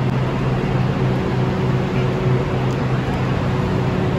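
Large vehicle engine idling nearby: a steady low hum.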